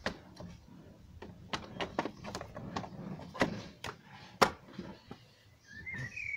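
Hard plastic engine-bay trim cover being fitted back over the front of the engine bay: a string of plastic knocks and clicks, the loudest about four and a half seconds in. A bird chirps briefly near the end.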